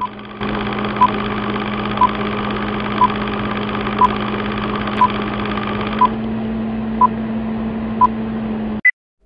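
Film-countdown sound effect: a steady film-projector whir and rattle with a short beep every second, nine beeps in all. It ends with one higher beep, then the sound cuts off suddenly.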